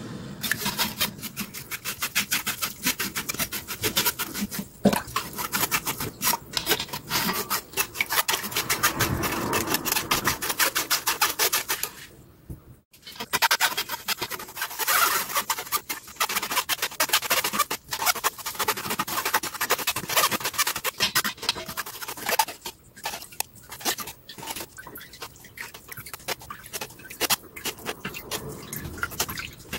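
Metal spoon scraping and pressing chili powder through a fine stainless-steel mesh strainer, quick repeated rasping strokes, with a short break about twelve seconds in and sparser strokes near the end.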